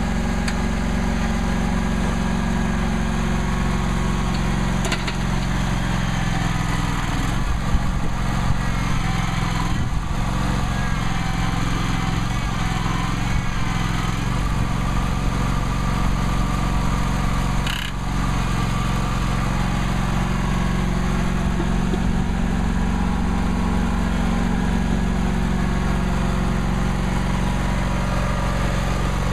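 John Deere X300 lawn tractor engine running steadily while the front shovel scrapes and pushes soil, with a few knocks about eight to ten seconds in and a sharp one near eighteen seconds.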